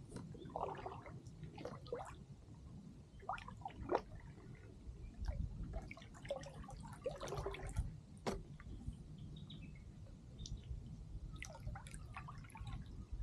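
Kayak paddle dipping into the water, with irregular small splashes and drips, over a steady low rumble.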